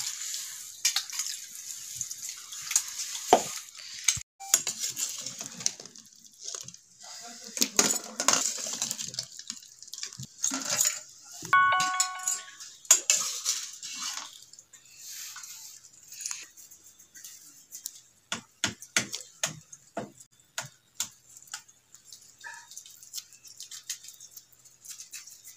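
Metal cookware being handled: scattered clinks, knocks and clatters of steel bowls, an aluminium pot and lid, with one short ringing metallic clang near the middle.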